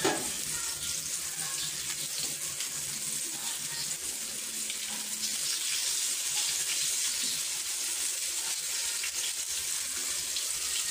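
Meatballs frying in shallow oil in a pan, a steady sizzle, with a few light scrapes as they are turned over.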